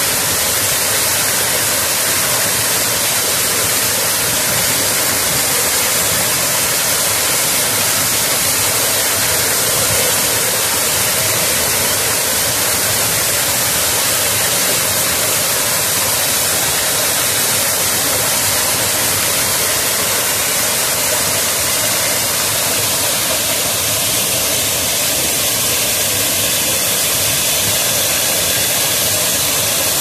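Waterfall's falling water rushing in a steady, loud, unbroken noise.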